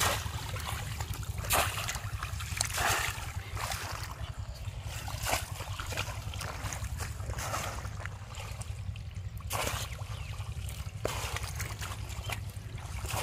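Shallow, muddy pond water splashing and sloshing in irregular strokes as a bamboo polo fish trap is pushed down into it and the wader moves through the mud, over a steady low rumble.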